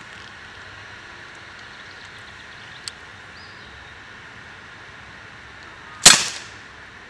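A single sharp crack of a pellet gun fired at an aerosol hairspray can, about six seconds in, dying away within half a second over a faint steady outdoor background.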